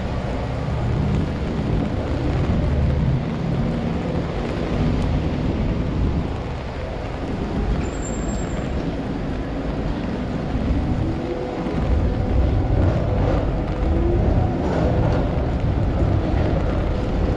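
City street traffic: vehicles running past with a low rumble, and a slowly rising motor whine from about ten seconds in.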